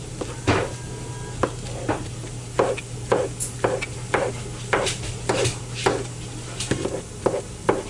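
Knife chopping on a cutting board: a run of sharp, uneven knocks, about two a second.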